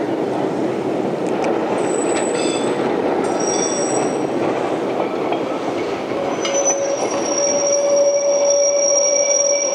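Vintage Rotterdam tram running away along its track, a steady rumble of steel wheels on rail. Brief high squeals come in from about two seconds in, and past the middle a sustained wheel squeal of several high tones sets in and holds.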